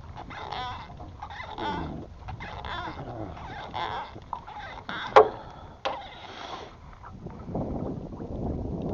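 A run of short pitched squeaks with gliding tones, then two sharp knocks a little after five seconds in, the first very loud. Steady wind and water noise follows near the end.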